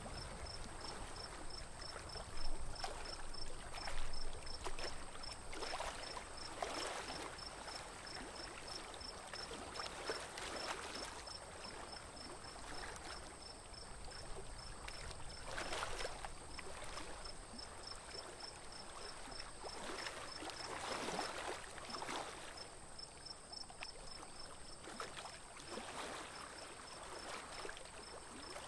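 Water swishing and lapping against a small wooden boat as it moves through a lake, swelling into louder splashes every few seconds.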